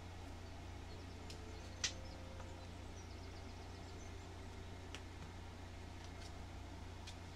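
Small polished crystals clicking as they are picked up and set down one at a time on a board, a few short sharp clicks with the loudest about two seconds in, over a steady low room hum.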